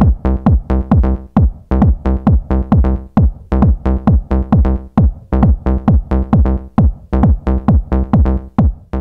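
Electronic dance music with a fast, steady kick drum and bass.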